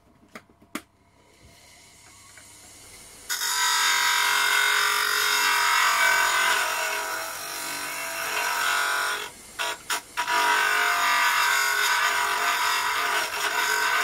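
Homemade disc sander driven by an old washing-machine motor: a couple of clicks, the motor spinning up, then from about three seconds in the loud, steady grind of metal pressed against the sandpaper disc. The grinding breaks off briefly with a few knocks about nine seconds in, then resumes.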